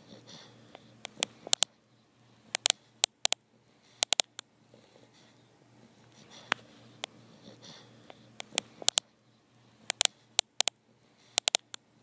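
Bulldog snoring in its sleep: soft breathy stretches broken by short, sharp clicks that come in quick clusters of two to four.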